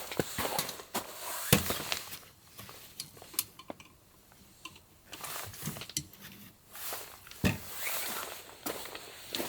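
Scattered clicks and knocks of objects being handled, with bursts of rustling in between; two heavier knocks stand out, about a second and a half in and again near the end.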